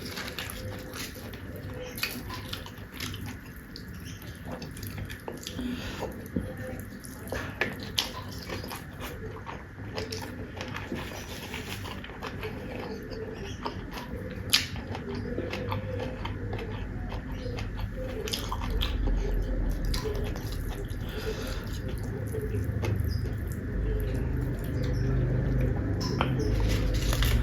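Close-miked eating sounds: steady chewing with many scattered sharp clicks and crunches. A low rumble builds through the second half.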